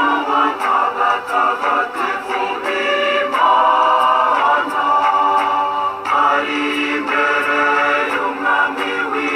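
Choir singing in sustained chords, with a light regular beat.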